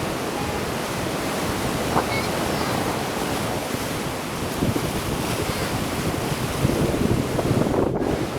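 Sea waves washing onto the shore, with gusting wind buffeting the microphone; the wind rumble grows stronger near the end.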